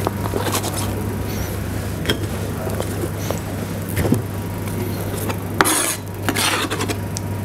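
Light knocks and clinks of a kitchen knife and dishes on a cutting board as apple slices are handled, with two short scraping rustles a little past halfway, over a steady low hum.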